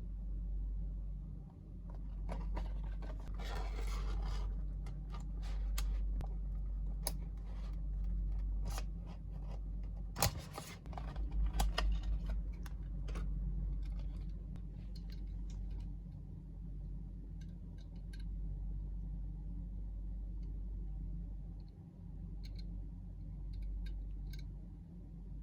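Hands opening the packaging of a 1/64 diecast model car: scattered sharp clicks of plastic and card, with a stretch of scraping about three seconds in and a busier run of clicks around ten seconds in, over a steady low hum.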